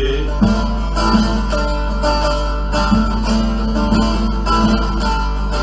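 Bağlama (saz) strummed and plucked, playing an instrumental run of evenly spaced notes between sung lines of a Turkish folk song.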